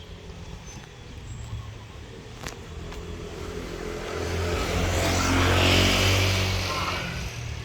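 A motor vehicle driving past: its engine and tyre noise grow louder to a peak about six seconds in, then fade away.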